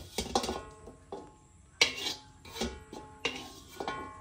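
Metal utensil clinking and scraping against cookware: an irregular run of about ten sharp strikes, each ringing briefly.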